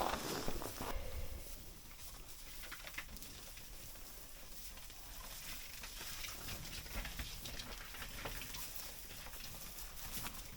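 Faint, irregular crackling and rustling with scattered small clicks, louder during the first second.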